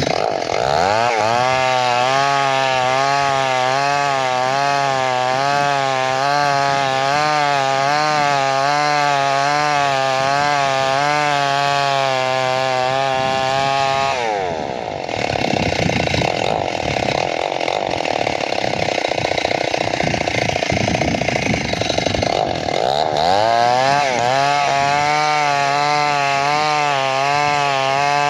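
Two-stroke chainsaw at high revs, its pitch wavering as it cuts into wood. About halfway through the revs drop away for several seconds, then it revs up again and cuts on.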